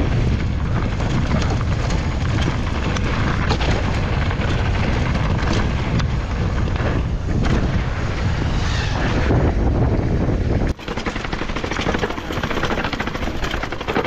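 Mountain bike running down a rough trail: wind buffets the microphone over a steady rumble, with frequent rattles and knocks from the bike. About eleven seconds in, the sound cuts off abruptly and changes character.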